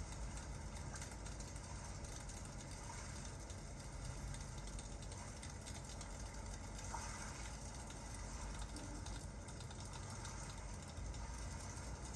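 Ambient crackling fireplace and rain: a steady hiss of rain over a low rumble, with a few small crackles and pops.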